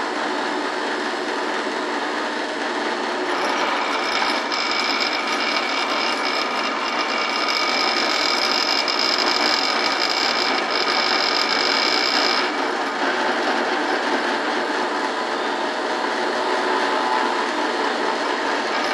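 Drill press running steadily as its bit is fed down into a block to bore holes. A high whine rises over the motor noise about three seconds in and stops about twelve seconds in.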